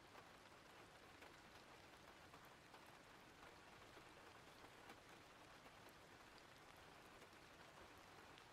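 Faint, steady rain ambience: an even hiss of rainfall with scattered small drop ticks.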